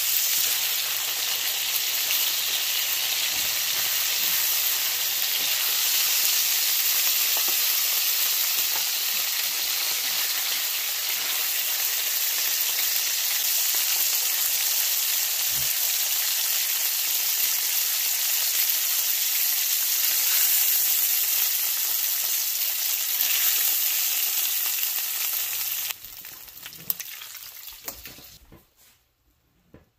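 Cube steaks dredged in seasoned flour sizzling as they fry in hot oil in a cast-iron griddle pan, a steady hiss. The sizzle cuts off suddenly about four seconds before the end, leaving only a few faint knocks.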